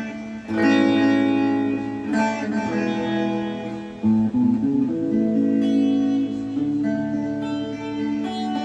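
Guitar chords strummed through a Zoom MS-70CDR+ multi-effects pedal set to its Hall reverb preset. A new chord is struck about every two seconds, and each one rings on under the reverb.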